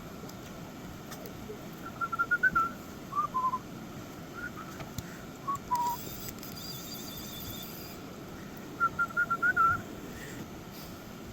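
A dog whining for attention in short, high-pitched notes. It comes as two quick runs of several notes each, with a few single notes between them.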